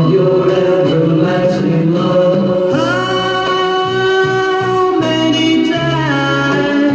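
Music with singing: long held notes, a new note sliding up about three seconds in.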